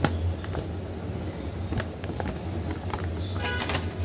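Steady low hum with a few light clinks of a steel spoon against a steel bowl.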